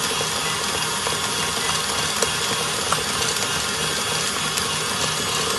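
KitchenAid stand mixer running steadily at high speed, its wire whisk beating gluten-free pizza dough in the steel bowl. This is the four-minute high-speed beat meant to give the dough a gluten-like texture.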